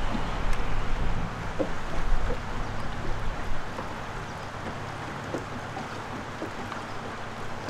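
Shallow river running over cobbles in a steady rushing hiss, with gusts of wind rumbling on the microphone for the first few seconds before it settles.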